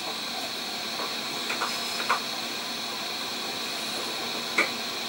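SMD hot-air rework station blower running steadily, a constant hiss of hot air with a faint high whine, as it heats a TVS diode on a hard-disk circuit board to melt its solder. A few faint light ticks sound over it.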